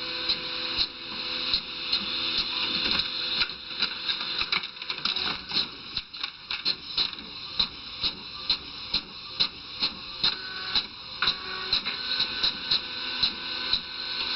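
Rhythmic mechanical clicking, about two sharp clicks a second over a steady whirring.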